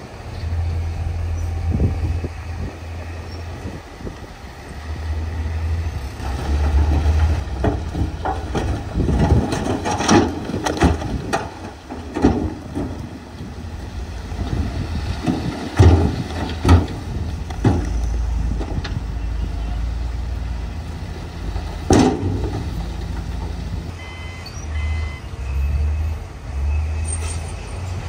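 Heavy tipper dump truck's diesel engine running as it raises its bed and dumps a load of rock, with repeated knocks and clatter of rocks tumbling out. A few short high beeps sound near the end.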